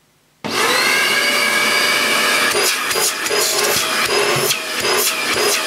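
Goblin GCV301W bagless cylinder vacuum cleaner switched on with only the hose fitted. It comes on about half a second in at full power, with no soft start, and runs quite noisily with a high whine. In the second half the sound flutters and dips briefly several times.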